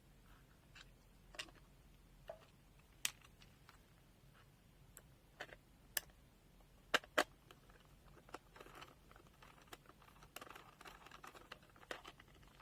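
Light handling of a plastic multimeter: scattered small clicks and knocks, the sharpest two close together about seven seconds in, with soft rustling near the end.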